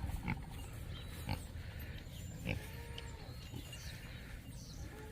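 Pigs grunting softly as they eat, with a few knocks and a couple of faint drawn-out calls.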